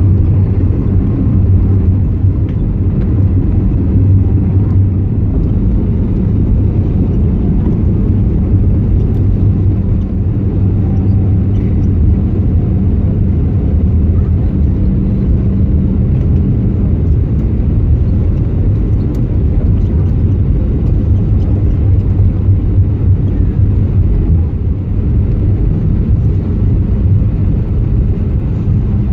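Steady low rumble inside the cabin of an Airbus A320neo in flight, from its CFM LEAP-1A engines and the airflow past the fuselage, with a steady low hum running through it.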